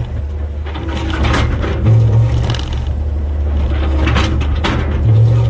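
Komatsu 120 excavator's diesel engine running under hydraulic load, swelling about two seconds in and again near the end, with the bucket scraping and knocking against limestone rock a few times.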